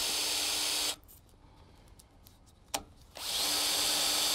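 Power drill boring a pilot hole through an L bracket into a fiberglass-reinforced polymer column: it runs steadily for about a second, stops, a single click sounds in the pause, and the drill starts again and runs to the end.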